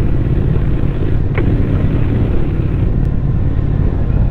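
Triumph 1200 cc parallel-twin motorcycle engine and exhaust running steadily under way at road speed, a dense low rumble.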